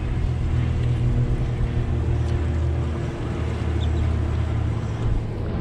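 A boat's outboard engine running steadily, a low even hum with no change in speed.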